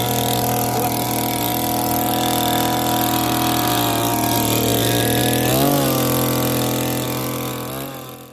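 Pro Quip Auger 58's 58 cc two-stroke engine running at high, steady revs on the earth auger, with a brief dip in pitch and recovery about five and a half seconds in, then fading away near the end.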